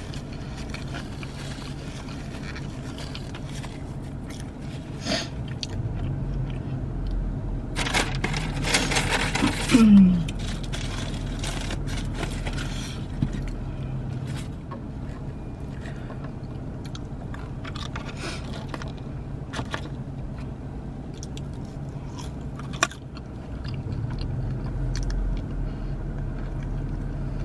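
Close-up chewing and crunching of a Wendy's Loaded Nacho sandwich topped with crispy corn: repeated crunchy bites and wet mouth sounds. A louder rustle comes about eight seconds in, with a steady low hum underneath.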